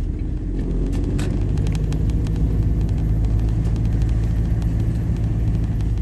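Car engine and tyre noise heard from inside the cabin while driving: a steady low hum, with a couple of light knocks about a second in.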